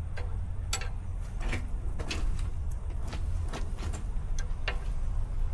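A steady low rumble with about nine irregular light clicks and knocks scattered over it.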